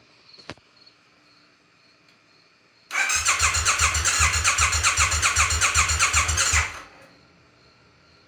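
2018 Triumph Bonneville T100's 900 cc parallel-twin engine cranking on the electric starter for about four seconds in an even, pulsing rhythm without catching, then stopping: a no-start. A single click is heard about half a second in.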